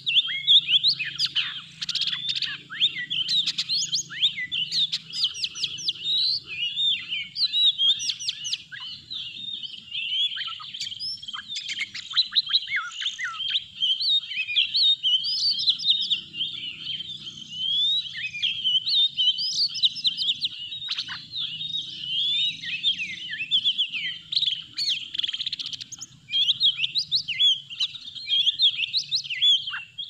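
Oriental magpie-robin singing: a continuous, rapid stream of varied whistles, chirps and quick up-and-down glides.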